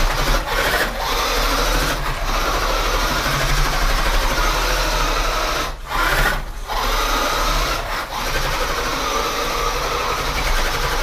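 Small electric motor and gears of a vintage 1983 Radio Shack RC buggy running hard on a 2-cell LiPo in medium gear, its tires spinning and scrubbing on a hardwood floor. The motor cuts out briefly a few times as the throttle is let off.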